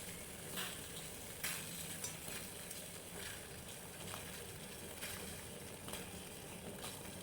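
Sugar syrup boiling in a pot, a faint steady bubbling hiss, with several soft splashes as chhena balls are dropped in one by one.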